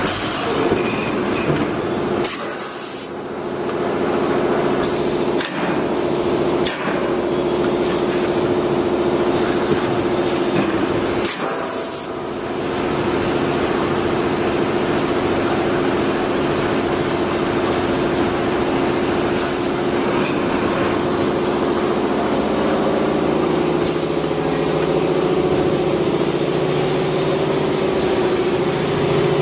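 Machinery of a 5-gallon bottled-water filling line running, with a steady hum and hiss throughout. Several short, sharp hisses break in, about two to three seconds in, around five and seven seconds, and near twelve seconds.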